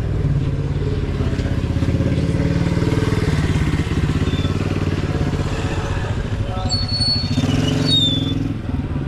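A motorcycle engine running close by, a steady low rumble whose pitch wanders slightly. A few short high squeaks come about seven seconds in.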